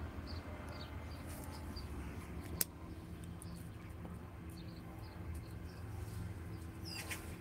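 Small birds chirping outdoors in short, scattered high chirps over a low steady hum, with one sharp click about two and a half seconds in.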